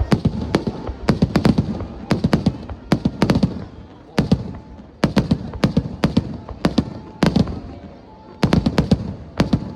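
Aerial fireworks shells bursting in rapid volleys: clusters of sharp bangs a few tenths of a second apart, with low booming between the clusters.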